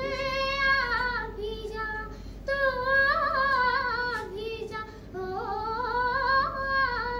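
A young girl singing solo and unaccompanied, in long held melodic phrases that bend and waver in pitch, with short breaks between phrases about two and a half and five seconds in.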